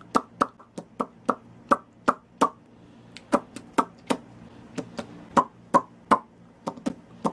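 A series of short, sharp clicks at an uneven pace, about three a second.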